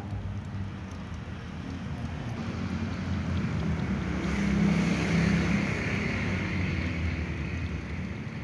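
A steady low rumble with a humming undertone, growing louder about four to six seconds in and easing off again.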